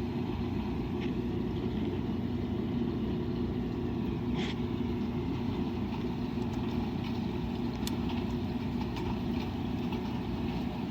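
Washing machine running with a steady hum, a few light clicks, and a brief hiss about four seconds in.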